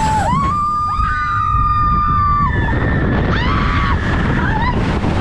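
Riders screaming on the big drop of a log flume ride: one long, high terror scream of about two seconds, then shorter screams, over wind rushing across the microphone and water rushing past the boat.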